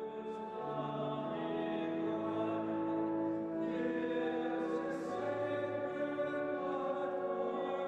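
A choir singing slow sacred music with long, sustained notes.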